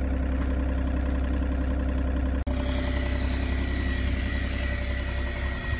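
Diesel engine of earthmoving equipment running steadily nearby during backfilling. The sound breaks off for an instant about halfway, then carries on with a thin high whine over the engine.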